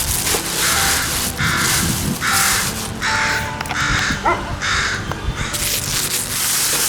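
Crow cawing over and over, a run of short caws roughly one a second, over background music.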